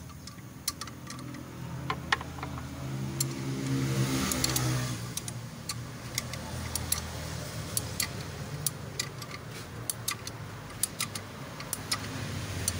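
Irregular metal clicks of a spanner working the bolt on a timing-belt tensioner pulley, over a low engine hum that swells and rises in pitch about four seconds in.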